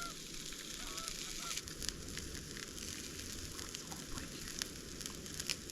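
Distant geese honking a few times in the first second and a half, over a steady hiss, with scattered faint clicks later on.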